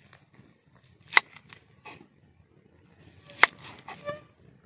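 Kitchen knife cutting on a wooden chopping board, with two sharp knocks of the blade meeting the board, about a second in and about three and a half seconds in, and a few softer cuts around them.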